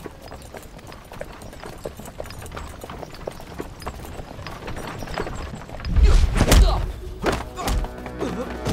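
Dramatic film music with light clicks and knocks, then about six seconds in a loud, heavy thud followed by more blows: men with wooden staves attack a man and knock him to the ground.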